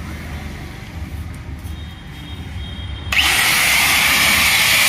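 A handheld power buffer switches on about three seconds in and runs with a loud, steady rasping hiss against the inner liner of a tubeless tyre, roughening the rubber around the puncture for a mushroom plug repair.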